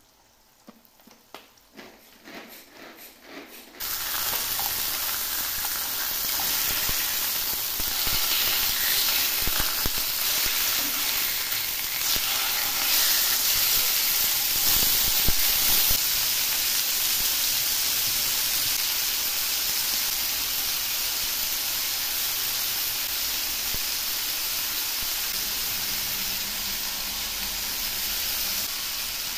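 Pork chops sizzling in hot oil in a frying pan, a steady loud hiss. The first few seconds are quiet with a few soft taps, and then the sizzle starts abruptly about four seconds in.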